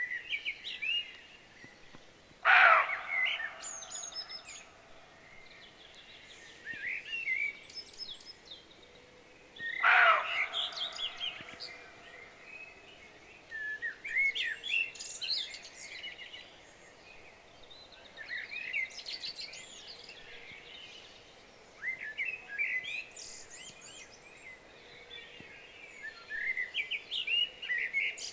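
Roe deer giving two short, harsh alarm barks, about two and a half seconds and ten seconds in, the sign of startled deer. Small birds sing and chirp throughout.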